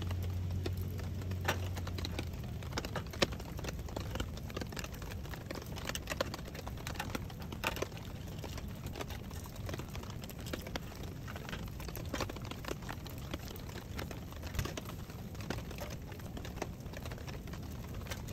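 Dense, irregular small clicks and taps of plastic cassette parts and small tools being handled on a perforated metal table while a cassette tape is taken apart.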